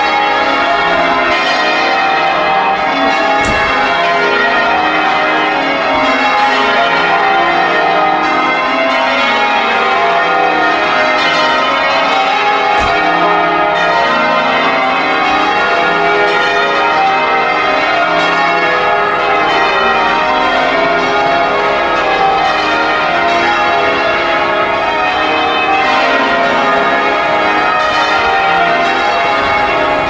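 Change ringing on Liverpool Cathedral's ring of thirteen bells, with an 82 cwt tenor in A-flat, heard from outside below the tower. The bells strike one after another in a continuous, even stream of overlapping tones.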